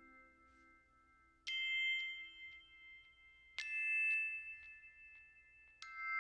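Three bright bell-like chime strikes, about two seconds apart, each ringing on in a steady high tone until the next one sounds.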